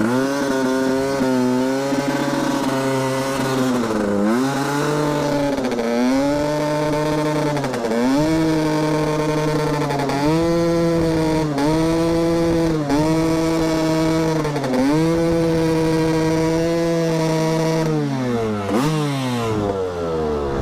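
Husqvarna supermoto engine held at high revs for a rear-tyre burnout. The revs dip briefly and recover every second or two, then fall away near the end.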